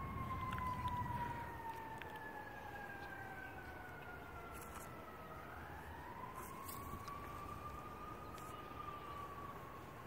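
A distant siren wailing slowly, its pitch falling over about five seconds, then rising and starting to fall again. Low rumbling noise comes at the start.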